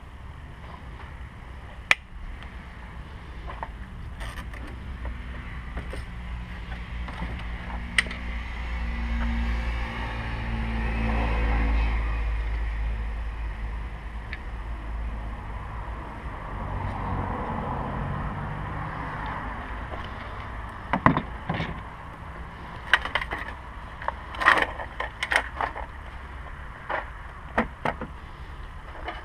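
A steady low rumble that swells and fades twice in the first two-thirds, then a scatter of sharp clicks and knocks in the last eight seconds, from hands and tools working on plastic and metal parts of the turn signal housing.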